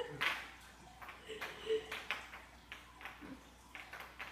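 Faint, scattered soft taps and rustles, with a brief faint voice-like sound about a second and a half in.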